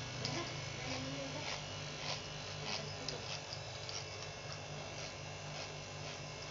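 Electric hair clippers buzzing steadily as they cut hair close to the scalp, with brief clicks now and then.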